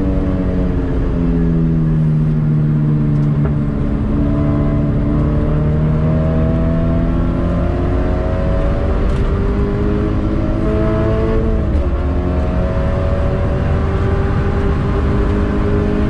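Toyota GT86's 2.0-litre flat-four boxer engine, breathing through a titanium cat-back exhaust, heard from inside the cabin under hard acceleration on track. Its pitch dips briefly at the start, then climbs steadily, drops sharply about twelve seconds in at an upshift, and climbs again, over a steady rumble of road noise.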